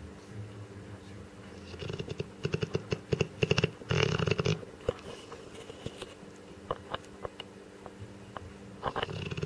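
Dogue de Bordeaux snoring in its sleep: a rattling, fluttering snore about two seconds in that lasts a couple of seconds, softer clicking breaths after it, and another snore starting near the end.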